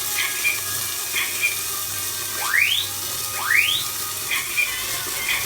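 Household fire alarm sounding, set off while gyoza were being cooked: a short electronic tone about once a second, two of them rising sweeps, over a steady hiss.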